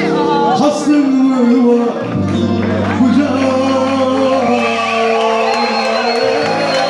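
Live Turkish folk song (türkü) performance: a male voice singing over instrumental accompaniment, with a low note held underneath from about two seconds in.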